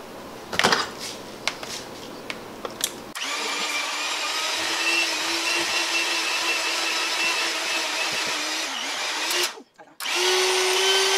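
A few light clicks and knocks, then an electric hand mixer starts about three seconds in and runs steadily, beating an egg into melted mozzarella and cream cheese. It breaks off briefly near the end and comes back at a slightly higher pitch.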